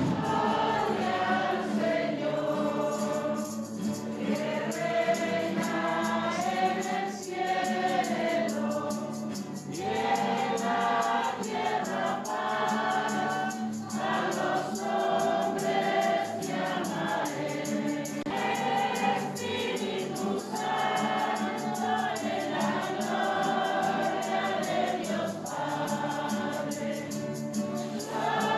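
A choir singing a church hymn in phrases of long held notes, over steady low accompaniment.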